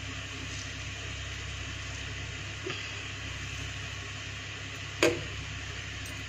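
A stainless steel plate knocks once against a stone kitchen counter about five seconds in, a sharp clink that rings briefly, with a fainter click a couple of seconds earlier. A steady low background hum runs underneath.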